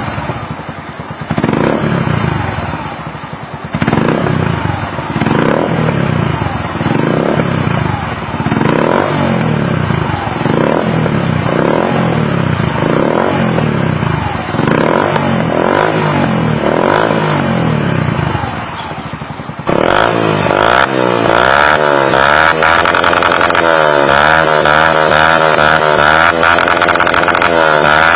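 Yamaha YBR 125's single-cylinder four-stroke engine revved through an aftermarket carbon-fibre Akrapovic muffler, in quick throttle blips about once a second. Near the end it changes suddenly to a higher, steadier run with a fast wobble in pitch.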